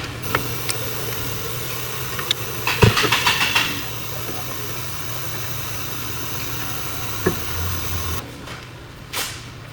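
Car engine idling steadily under a hiss, with a quick run of clicks about three seconds in; the hiss drops away near the end.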